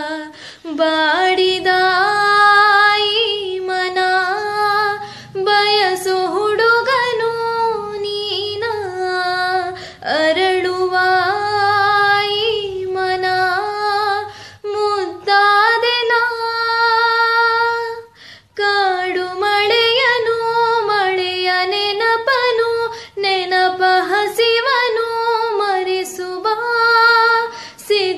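A woman singing a Kannada song solo, holding long notes with small ornaments. There is a short breath pause about two-thirds of the way in, and no accompaniment is heard.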